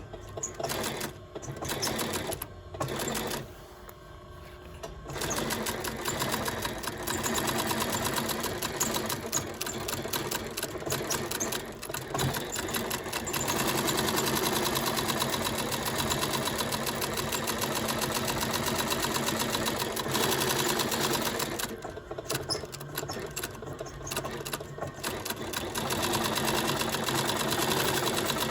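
Sewing machine fitted with a binder attachment stitching leather edge binding onto a leather part. It runs a few short bursts of stitches, then sews steadily for long stretches, with a spell of brief stop-and-start runs about three-quarters of the way through.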